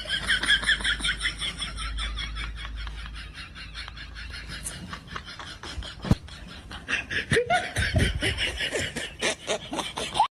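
Laughter sound effect: a long run of rapid, rhythmic laughs, with a short knock about six seconds in.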